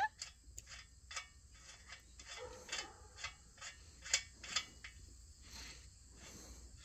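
Faint, scattered metal clicks and light clinking as the rear axle nut and training-wheel bracket of a child's bicycle are worked loose by hand. Two louder clicks come close together about four seconds in.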